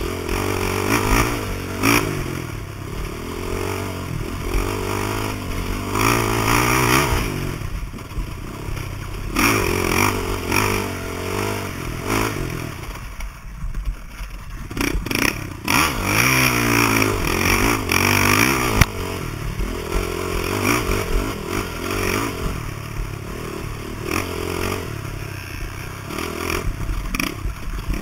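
Off-road motorcycle engine revving up and down as it is ridden, the throttle easing off briefly about halfway through.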